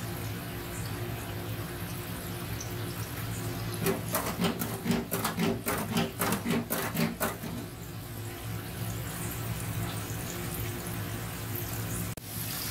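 Chicken pieces deep-frying in hot oil in a commercial electric deep fryer: the oil bubbles steadily over a low, constant hum. Near the middle comes a quick run of sharp clicks lasting about three seconds.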